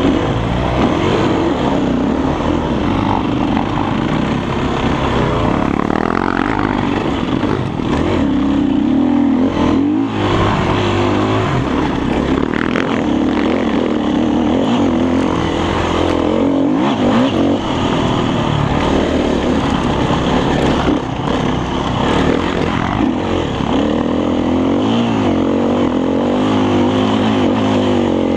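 Off-road enduro motorcycle engine under way on a dirt trail, revving up and down continuously as the throttle is worked.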